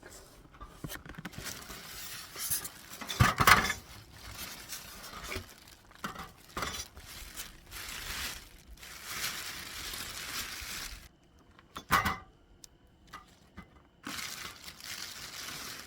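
Handling noises: crinkling and rustling with clinks and knocks, a louder clatter about three seconds in, and stretches of steady hiss.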